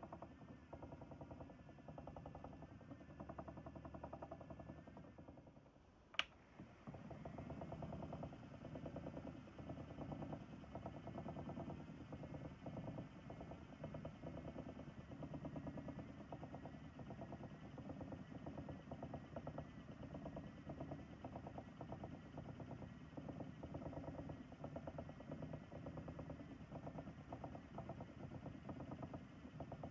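Ashford e-Spinner electric spinning wheel's motor and flyer whirring steadily as dog hair is spun into yarn. The whirring sinks about five seconds in, a single sharp click comes about six seconds in, and the whirring then picks up again.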